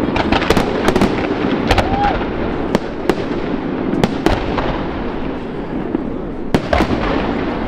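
Fireworks display: aerial shells and comets bursting, about a dozen sharp bangs at uneven intervals over a continuous din, with a lull of about two seconds before a final pair of bangs near the end.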